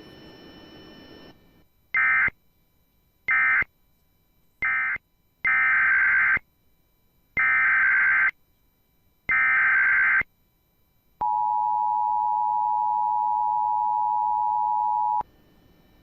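Emergency Alert System signalling: three short data bursts of the end-of-message code, then three longer data bursts of the SAME header announcing a new tornado warning, then the two-tone attention signal held steady for about four seconds.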